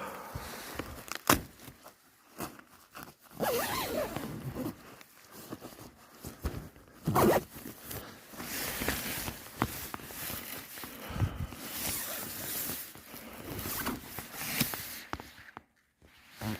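Irregular footsteps, scrapes and rustling, with scattered clicks, as someone moves about and handles outdoor gear.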